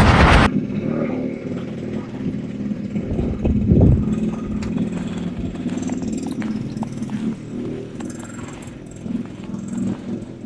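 A loud rush of noise cuts off abruptly about half a second in, leaving a motor vehicle's engine running steadily, with small scattered clicks over it.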